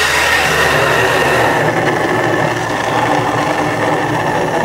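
Water from a garden hose's pistol-grip spray nozzle rushing into a FloTool 6-gallon plastic water can through its fill opening as the can fills. The sound is a loud, steady rush that starts as the nozzle is opened.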